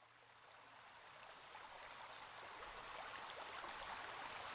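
Faint rainforest ambience fading in from silence: an even rushing hiss that grows slowly louder.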